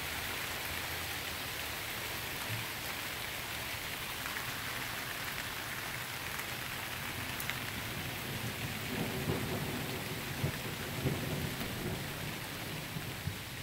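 Steady heavy rain hissing on pavement and lawns, with a low roll of thunder rumbling in about eight or nine seconds in and fading again a few seconds later.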